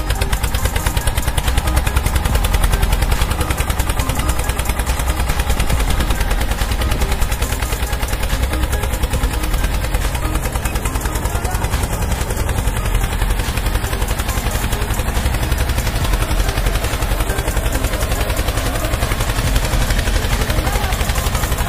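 Fast, steady engine-like chugging with a heavy low rumble, like a tractor engine running, continuing unbroken while the homemade toy tractor tows the two others.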